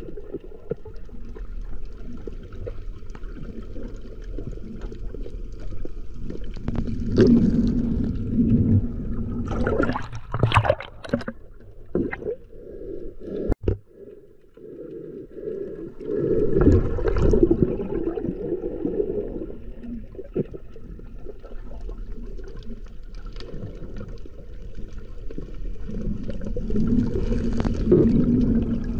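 Muffled underwater water noise picked up by a camera held just below the sea surface: a steady low rumble with gurgling, sloshing surges a few times, as water moves past the camera.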